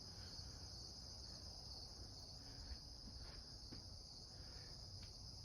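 Faint, steady chorus of insects, an unbroken high-pitched trill, with a few faint ticks.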